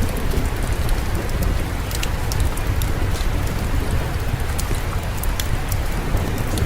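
Steady rain, an even hiss over a deep, steady low rumble. A few sharp clicks are scattered through it.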